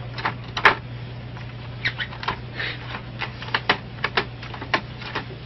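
Irregular clicks and taps over a steady low hum, from a printer and its paper tray as a cat paws and noses at the sheet in the output tray.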